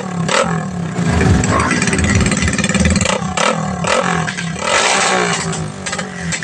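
Rusi Korak 110 motorcycle's 110 cc single-cylinder engine running through an open exhaust pipe, revved up and down, with several sharp pops through the pipe.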